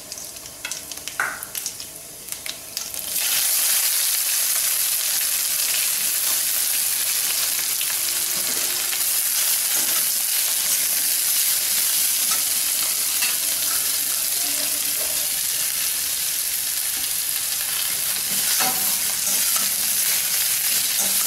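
A few crackles from cumin seeds in hot oil, then about three seconds in a loud, steady sizzle as sliced onions go into the stainless steel kadai. The onions and carrot strips fry, with a spatula stirring them against the pan.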